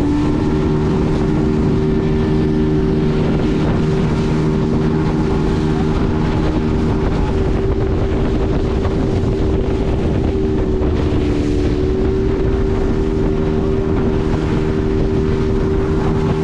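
Motorboat engine running at a steady speed, with wind buffeting the microphone.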